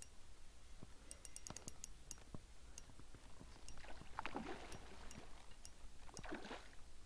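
Handling noise in an inflatable boat: a few light ticks from the spinning reel in the first couple of seconds, then two short swishing, rubbing bursts about two seconds apart as the rod and the angler move in the boat.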